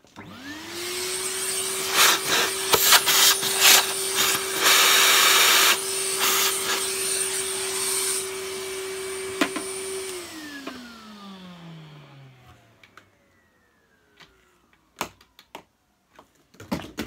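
Vacuum cleaner switched on, its motor whine rising to a steady pitch within a second. It runs with scattered clattering clicks and a stretch of louder air rush in the middle, then is switched off about ten seconds in, the whine falling away over the next few seconds.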